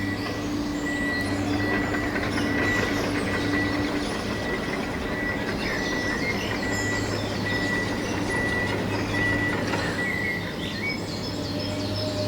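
A steady mechanical hum with a constant high whine running under it, with birds chirping now and then.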